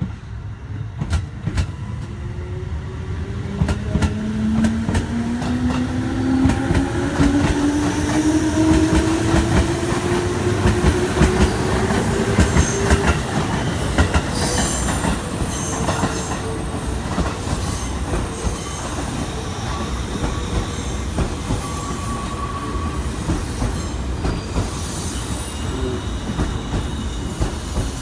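Electric commuter train accelerating away: the traction motor whine rises steadily in pitch over the first dozen seconds while the train grows louder. The wheels clack over the rail joints, and a steady running rumble follows.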